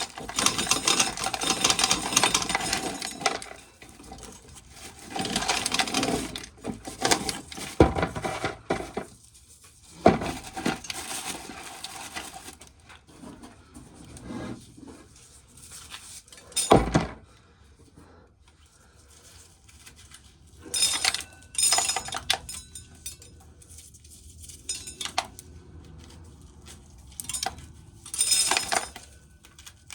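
Dry corn kernels rattling and clinking into a metal tin can in irregular bursts as ears of corn are shelled, with a few sharp knocks in between.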